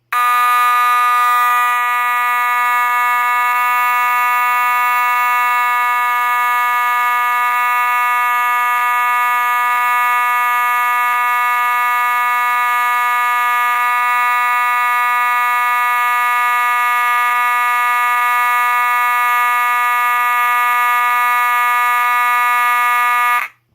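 Faraday 6120 fire alarm horn sounding a continuous, steady, buzzy tone on test, then cutting off abruptly near the end.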